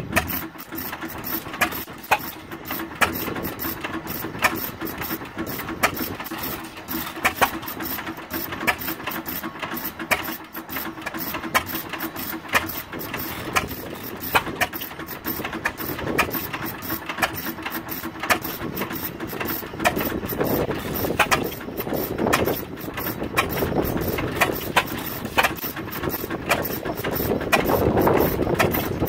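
Antique hit-and-miss stationary gas engines, a 6 hp Galloway and a Fairbanks Morse, running, their exhausts firing in sharp pops at uneven intervals of about one a second between coasting strokes. A rushing noise swells over the last several seconds.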